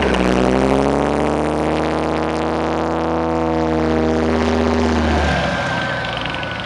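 Engine of a tracked armoured vehicle working under load as it pushes its front plough through soil. The engine note rises right at the start, holds steady, then drops away about five seconds in as the vehicle moves off.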